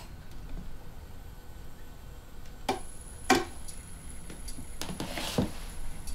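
A few light clicks and knocks from hands handling an old record player while putting on a record, with a short rustle a little after the middle.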